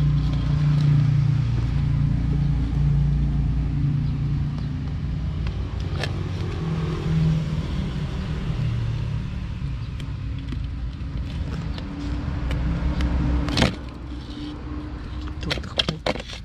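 Engine running with a steady low hum. A sharp click comes about fourteen seconds in, after which the hum is quieter and a few handling clicks follow.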